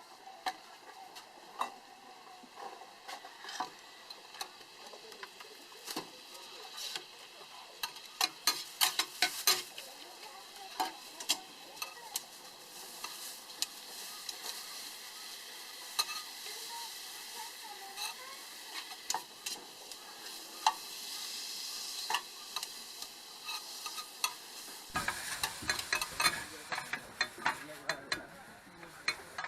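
Meat sizzling as it grills, with frequent sharp clicks and scrapes of the cook's tongs or spatula turning it. The clicks come thickest about a third of the way in, and the handling turns busier near the end.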